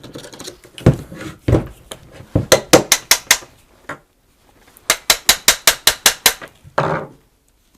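Two heavier knocks, then two quick runs of sharp hard taps, about six or seven a second, on the stuck router's housing as it is worked to free its jammed plunge mechanism, ending in a short scrape.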